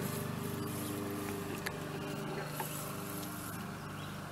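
A steady low hum from a small motor, with a few faint clicks.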